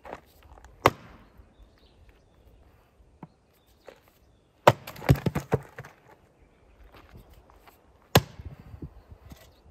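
Axe chopping firewood: three sharp strikes into a round of wood on a chopping block, about three and a half seconds apart, splitting it. The second strike is followed by a quick run of smaller wooden knocks.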